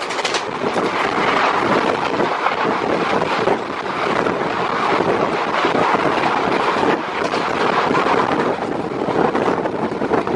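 A passenger train of blue coaches passing close by at speed on the next track, heard from the door of another moving train: a loud, steady rush of wheels and air with wind buffeting the microphone, easing off near the end as the last coach goes by.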